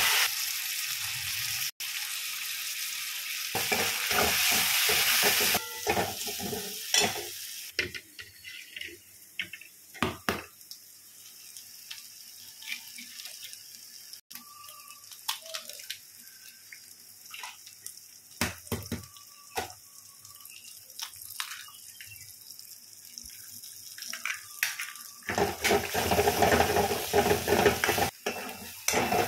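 Vegetables sizzling in a steel wok while a metal spoon stirs and scrapes them around the pan, with frequent clinks of spoon on metal. The sizzle is loud at the start and again from near the end, and quieter in the middle where the scraping and clinking stand out.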